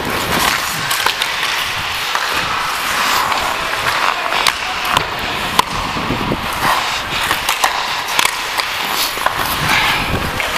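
Ice skate blades scraping and carving the ice during hockey play, picked up close from a player-worn camera, with frequent sharp clacks of sticks and puck.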